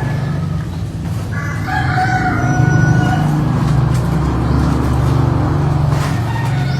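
A drawn-out animal call lasting about a second and a half, with a clear pitch, over a steady low hum.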